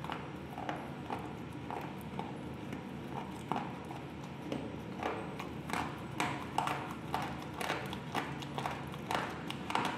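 Slate pencil pieces being bitten and chewed, sharp dry crunches. They come about two a second at first, then faster and louder from about halfway.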